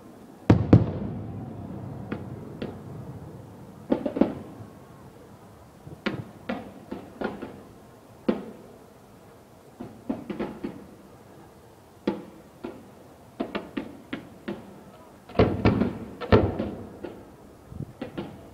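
Fireworks shells and mines bursting: irregular sharp bangs, some single and some in quick clusters, each with a short rumbling tail. The loudest comes about half a second in, and a dense run of bangs comes near the end.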